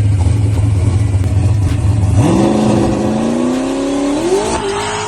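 Loud race car engine held at a steady drone, then accelerating hard about two seconds in, its pitch climbing steadily and rising more steeply near the end.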